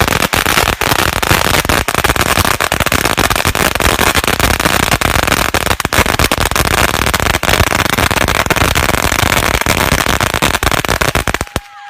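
A long string of firecrackers going off in a dense, rapid rattle of pops that stops abruptly near the end.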